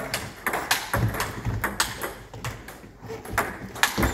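Table-tennis rally: the celluloid ball clicking off the bats and bouncing on the table, about three sharp clicks a second.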